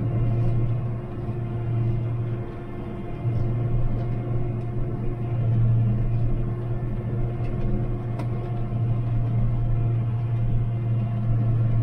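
Farm spraying rig's engine running steadily with a low hum. It eases off briefly about two and a half seconds in, and a few light clicks come over it.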